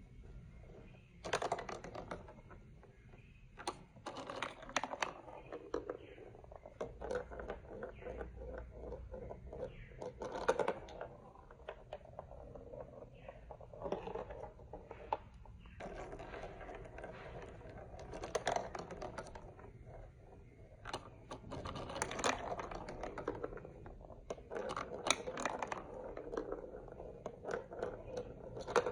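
Plastic marble run building blocks being handled and fitted together: irregular clicks and light clatter, with short stretches of rustling.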